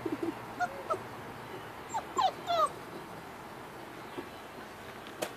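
Puppies whimpering: a few short, high whines, then a louder run of sliding whines a little over two seconds in.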